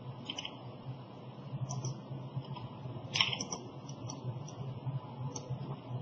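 A few scattered clicks and taps of a computer keyboard and mouse, the sharpest about three seconds in, over a steady low hum.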